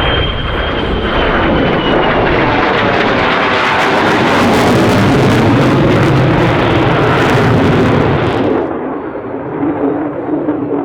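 A display aircraft flying past low. Its engine noise builds to a loud peak and drops away sharply about eight and a half seconds in.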